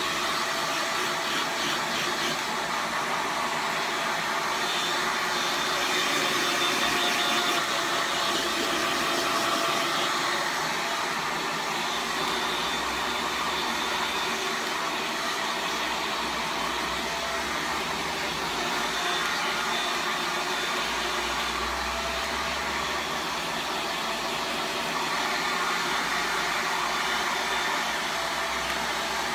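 Handheld hair dryer running steadily, a continuous rush of blown air with a faint whine over it; a low rumble comes and goes as it is moved around the head.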